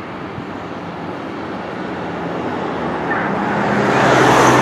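Pierce fire engine's diesel engine running and growing steadily louder as the rig starts to roll forward out of the station bay. A steady low engine note comes in about three seconds in.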